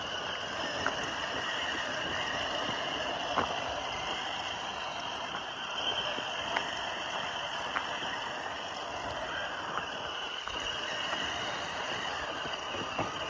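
Traxxas TRX4 Sport RC crawler with a brushless motor driving over rough ground: a steady high motor whine over tyre and drivetrain noise, with occasional sharp clicks and knocks.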